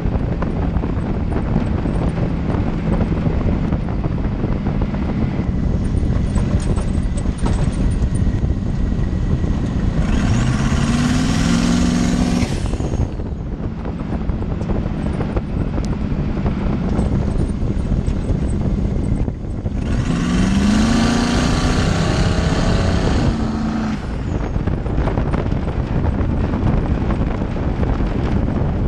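Twin-turbo Rover 3.9 V8 in an off-road buggy, driven hard on a dirt track. It accelerates twice, about ten and about twenty seconds in, rising steeply in pitch with a loud hiss each time, then cuts back sharply.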